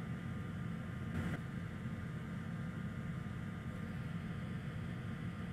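Steady low hum and hiss of running bench equipment, with a faint tick about a second in.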